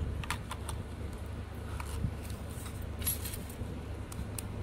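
Light clicks and small clatter of a plastic Smart Tag toll transponder being handled while its batteries are reseated, with a brief cluster of sharper clicks a little after three seconds.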